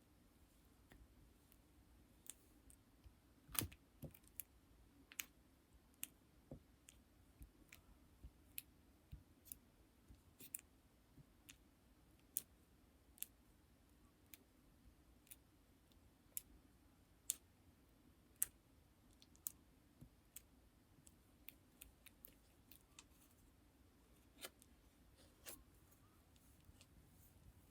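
Lipstick cases being handled: sparse, sharp little clicks and taps at an uneven pace, about one or two a second.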